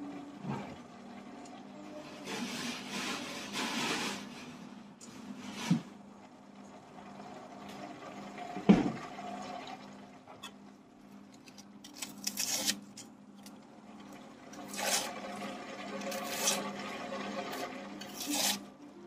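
Handling and peeling vegetables by hand: repeated rustling and scraping of onion skin and food, with one sharp knock about nine seconds in, over a steady low hum.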